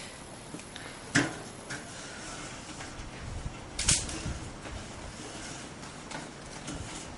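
Two sharp smacks about two and a half seconds apart, the first the loudest: blows struck with hand-held props such as a hockey stick and a snow shovel.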